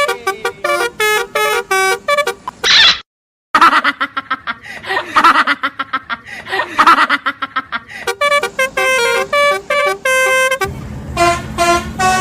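Multi-tone 'telolet' bus horn playing a quick tune of short, loud notes at changing pitches, with denser overlapping notes in the middle. The sound breaks off completely for about half a second roughly three seconds in.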